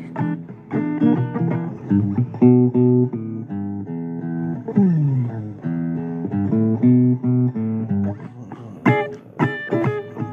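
Blues guitar playing an instrumental break between sung lines: picked notes and chords, a note sliding down in pitch about five seconds in, and quick strummed chords near the end.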